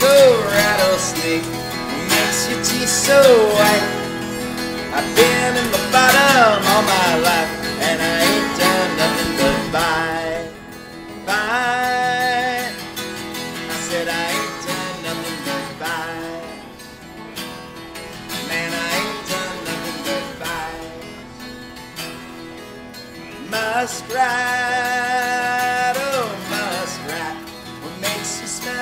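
Music led by an acoustic guitar, with a melody line that wavers in pitch on its held notes.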